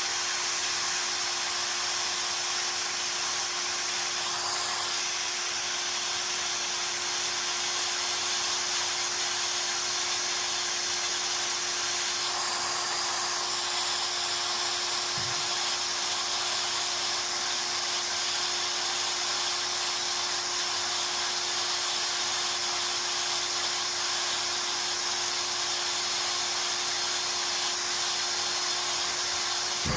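CNC router spindle running with a steady high-pitched whine and hiss, unchanged throughout.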